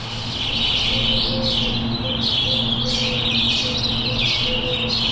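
Many small birds chirping at once in a dense, continuous chatter over a steady low drone of a few held tones. The chirping cuts off abruptly at the end.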